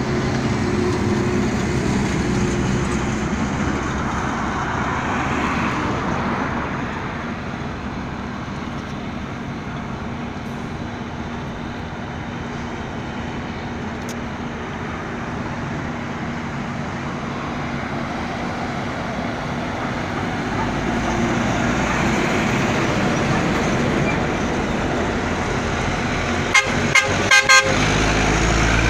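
Volkswagen Constellation truck's diesel engine running and pulling away, getting louder over the last several seconds, with a few short horn toots near the end.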